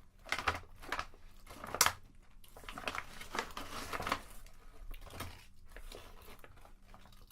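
Crinkly plastic potato chip bag rustling and crackling as it is handled, in repeated bursts over the first four seconds or so, then quieter.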